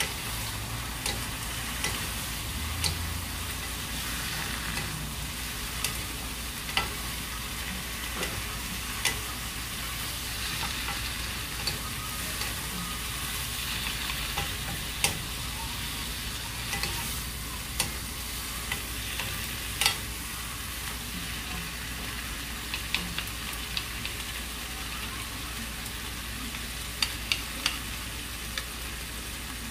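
Sliced zucchini sizzling in a frying pan as it is stir-fried and turned with two wooden spatulas, with scattered sharp clacks of the wooden spatulas against the pan.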